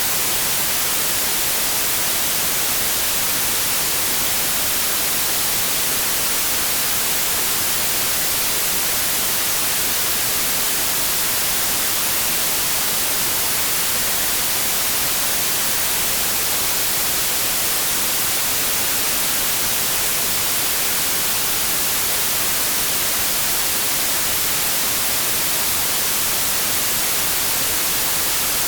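Pure white noise: a steady, even static hiss, brightest in the high frequencies, that does not change.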